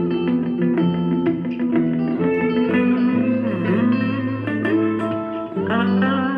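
Background music led by guitar, with plucked notes and sliding pitch bends.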